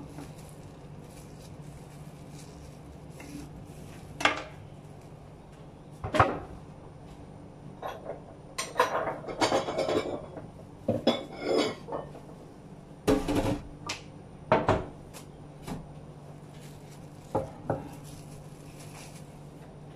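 Kitchenware clattering and clinking: dishes and utensils handled and a ceramic bowl set down on a wooden cutting board, in scattered knocks with a busy run of clatter in the middle.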